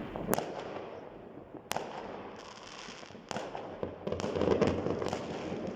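Fireworks going off across a town: several sharp cracking bangs a second or so apart over a constant background rumble of distant explosions, busiest about four seconds in.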